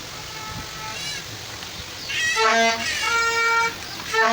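A tune of held, steady notes at two or three pitches starts about two seconds in, over faint background noise; a few faint short chirps come about a second in.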